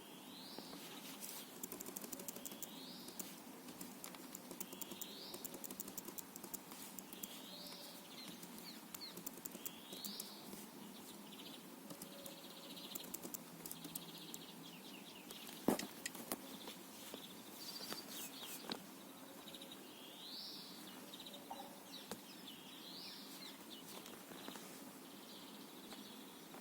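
A bird calling, a short rising chirp repeated about every two and a half seconds, with faint clicking and a single sharp knock midway.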